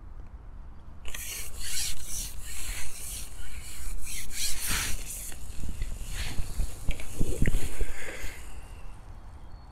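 Carbon fishing pole rubbing and rasping as it is shipped back and broken down while a hooked fish is played, in a run of irregular strokes from about a second in until near the end.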